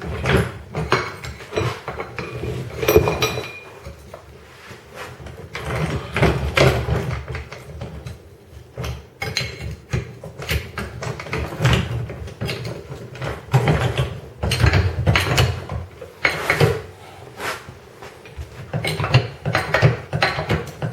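Irregular metallic clanks and knocks of tools and suspension parts on a Chery M11's rear suspension as the arm is raised to mid ride height so the new silent-block bushing can be tightened in its working position.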